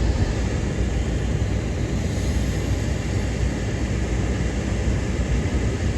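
Steady low rumble of a car driving, heard from inside the cabin: engine and road noise without change.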